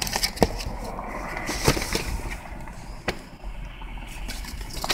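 A few sharp knocks and clicks of a hand-held phone being handled and shifted, over a low steady rumble inside a pickup's cabin.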